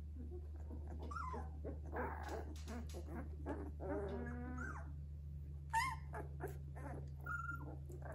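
Two-week-old Labrador puppies whimpering and crying in short squeals as they squirm over one another, with a sharp high squeal about six seconds in. A steady low hum runs underneath.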